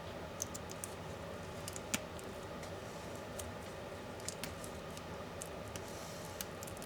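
Scattered small, sharp clicks and taps of laptop parts, screws and hand tools being handled during disassembly, the loudest about two seconds in, over a steady low room hum.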